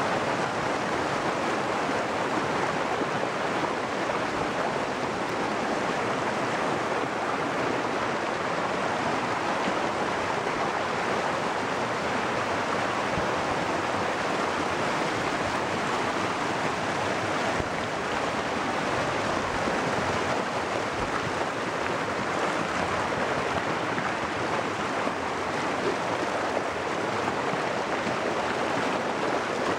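White water rushing and churning down a sloping rock bed in a fast, full stream: a steady, unbroken rush.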